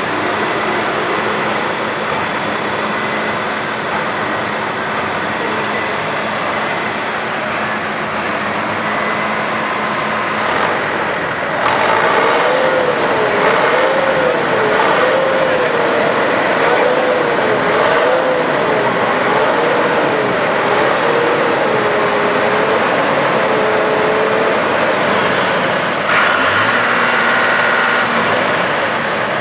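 Farm machinery engines running steadily. Partway through, a wavering tone joins in, rising and falling slowly.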